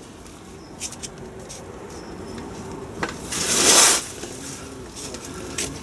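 Hands fitting a new Land Rover TD5 rear crankshaft oil seal, with its installation aid, onto the crankshaft: a few light clicks and scuffs, and a loud hissing rush lasting just under a second about three seconds in.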